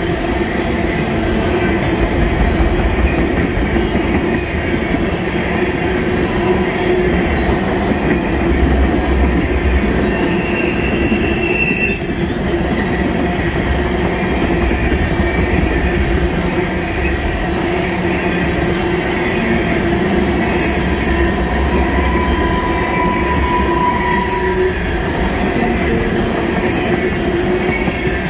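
Empty oil tank cars of a freight train rolling steadily past: a continuous rumble of steel wheels on rail. Brief wheel squeals cut through, a high one about ten seconds in and a lower one later on.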